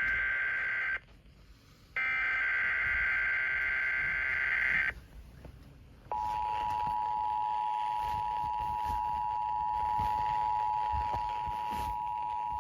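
Emergency Alert System audio: the end of one screeching SAME header data burst, then a second full burst lasting about three seconds. After a short pause, the steady two-tone EAS attention signal starts about six seconds in and holds, announcing the start of an alert, here a high wind warning.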